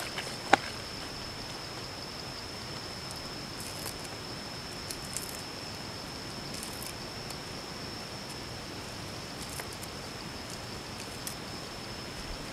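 Steady hiss under a thin, steady high-pitched tone, with one sharp click about half a second in and a few faint crinkles and ticks as hands arrange raw pig intestine on a banana leaf.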